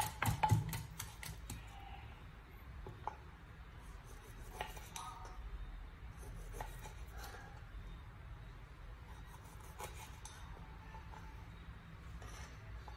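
A pestle knocks a few times in a wooden mortar right at the start. Then a knife slices a peeled green vegetable on a wooden cutting board, with faint scattered cuts and taps of the blade on the wood.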